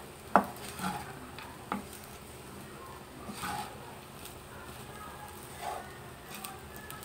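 Wooden spatula stirring fried rice in a frying pan, knocking against the pan now and then; the sharpest knock comes just under half a second in, another near the two-second mark, then only softer taps.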